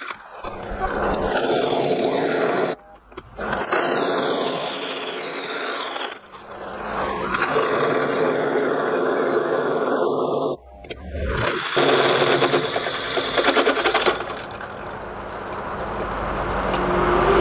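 Benchtop drill press running, its bit cutting through thick steel plate, with three short breaks. A low rumble builds near the end.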